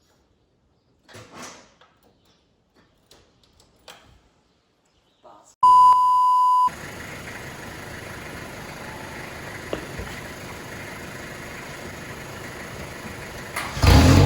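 A few faint knocks, then a loud steady electronic beep for about a second, followed by a steady hiss. Near the end the Corolla ute's engine fires for its first start on the new truck-stack exhaust and runs loudly.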